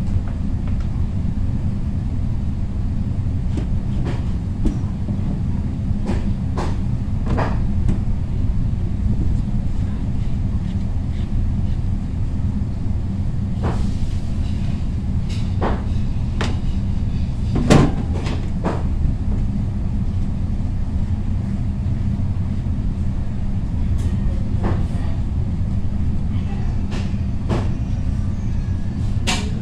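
Kitchen knife cutting through a raw squash and striking the cutting board: scattered sharp knocks, the loudest about 18 seconds in, over a steady low rumble.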